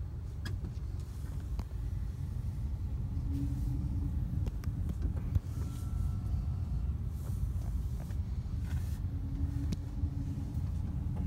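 Car driving, a steady low rumble of engine and road, with one sharp knock about five seconds in.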